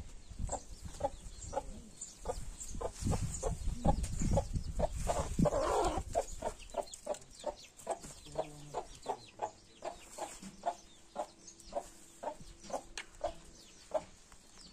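Hen with young chicks clucking steadily, short clucks about three a second, with a low rumble under the first few seconds.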